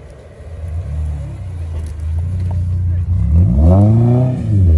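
Chevrolet Niva's four-cylinder engine pulling at low revs as it works through an off-road ditch, then revved up and down in rising and falling sweeps from about three seconds in.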